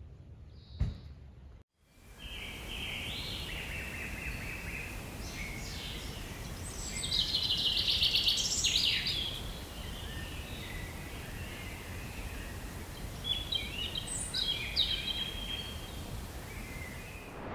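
Wild birds singing over a steady outdoor background hiss, with a dense, loud trill near the middle and scattered chirps later. A brief click comes just after the start.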